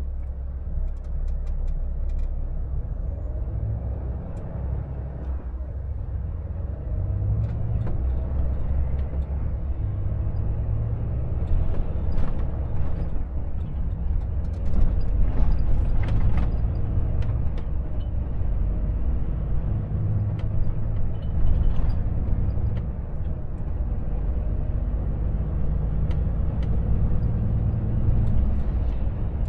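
Volvo FH 460's diesel engine heard from inside the cab, pulling the truck away from a standstill and accelerating, the engine note changing in steps as it goes up through the gears. Tyre and road noise grow as the speed rises.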